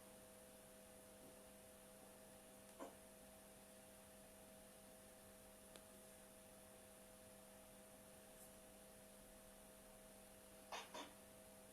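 Near silence: a faint steady electrical hum with hiss, broken by a few faint short clicks, one about three seconds in and two close together near the end.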